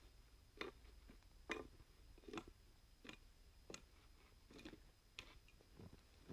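Bark being scraped off a wooden fence rail with a hand tool, in short faint strokes about one every 0.7 seconds.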